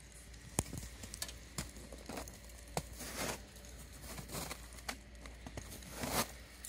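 Scattered light taps and short rustles, irregular, about one or two a second, with one louder rustle near the end.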